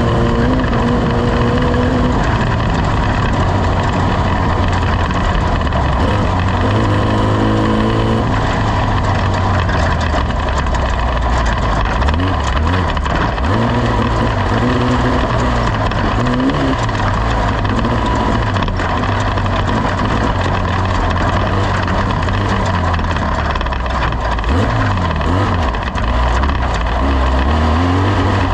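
Off-road race vehicle's engine running hard under a constant loud rush of noise. Its pitch rises and drops several times as it revs up and backs off.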